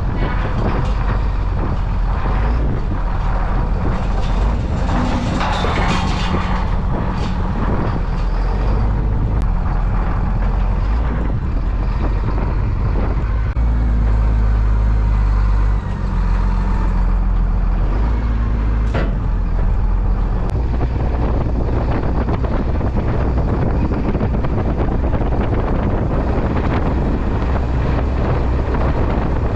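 Heavy farm machine's engine running steadily, its pitch and load shifting now and then, with scattered knocks and clanks.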